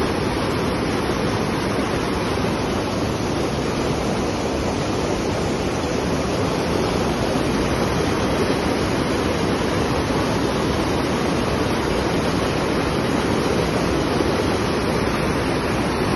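Floodwater pouring over a concrete spillway wall and churning into rapids below: a steady, loud rush of water.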